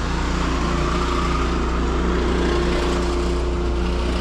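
An engine running steadily at a constant speed, with a low, even hum throughout.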